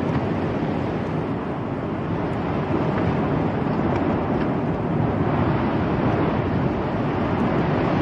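Steady wind and surf noise, with wind blowing across the microphone.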